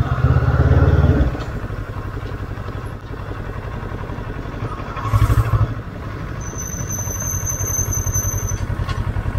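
Kawasaki ER-6n parallel-twin motorcycle engine running at low road speed, with its exhaust pulse swelling louder twice as the throttle opens: once during the first second and again about five seconds in.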